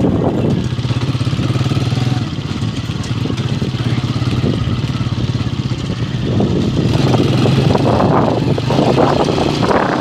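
Honda motorcycle engine running while the bike is ridden over a dirt track, with wind buffeting the microphone. The engine is softer from about two seconds in and picks up again around six seconds in.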